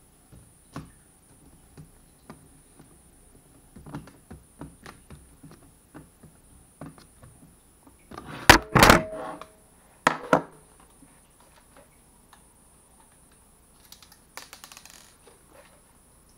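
Scattered light clicks and taps from hands working on a laptop's plastic case and parts during reassembly. A little past the middle comes a cluster of louder clacks, then two more about a second later.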